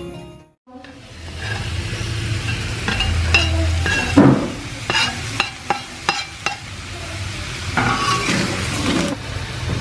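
Crab pieces and chopped vegetables sizzling in a metal wok during stir-frying, while a spatula scrapes and clinks against the pan. A louder knock comes about four seconds in, followed by a run of sharp clinks.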